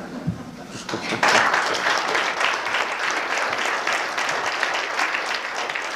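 A roomful of people applauding, the clapping swelling about a second in and then tapering off slowly.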